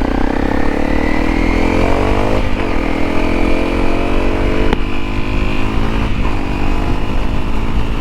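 Honda CRF250L's single-cylinder four-stroke engine accelerating hard through the gears. The pitch climbs, then drops sharply three times, at about two and a half, four and three-quarter and six seconds in, as it upshifts.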